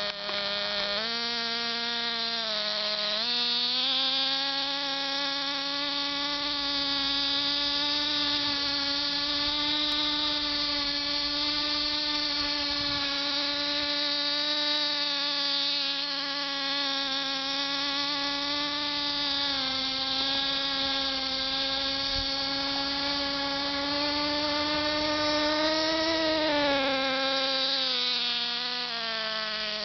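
Small two-stroke glow-fuel (nitro) engine of a radio-controlled model car running at high revs: a steady, high buzzing whine. Its pitch steps up about a second in, dips briefly around three seconds, and rises and falls again a few times as the throttle is worked, with a dip near twenty seconds and a rise and fall near the end.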